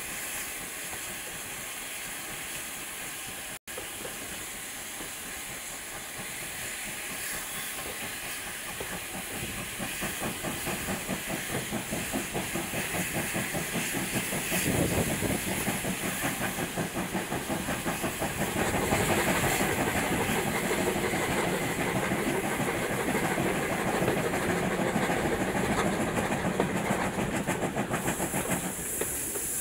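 GWR 9400-class pannier tank locomotive 9466 under way, heard from the cab side: a steady hiss of steam with rhythmic exhaust beats and running noise that grow louder from about ten seconds in as the engine works harder.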